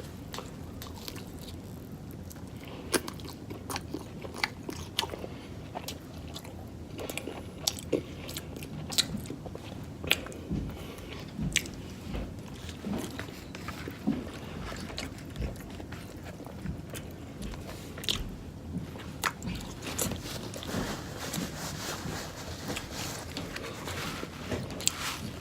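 A person biting and chewing food close to the microphone, with many small crunchy clicks and mouth smacks at irregular intervals.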